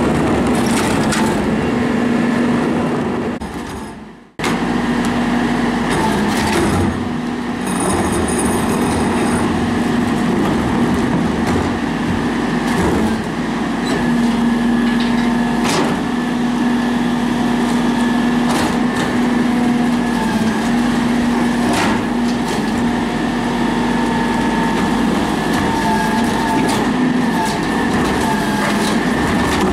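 Garbage truck engine running steadily with a constant hum, under the knocks and clacks of plastic wheeled carts being handled and tipped into the rear hopper by the hydraulic cart tipper. The sound breaks off briefly about four seconds in.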